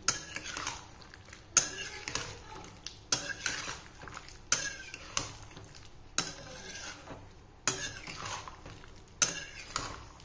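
Metal spatula scraping and knocking against a metal kadai as a thick vegetable curry is stirred and mixed, a sharp scrape about every second and a half.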